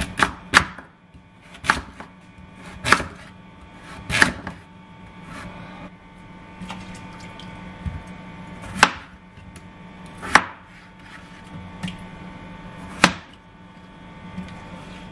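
Chef's knife slicing raw carrot and then potato, each cut ending in a sharp knock on a bamboo cutting board. There are about eight cuts at uneven intervals, with longer pauses between some of them.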